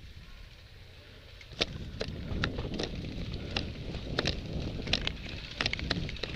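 Footsteps crunching through dry leaves and brush at a walking pace, starting about a second and a half in, with wind rumbling on the microphone.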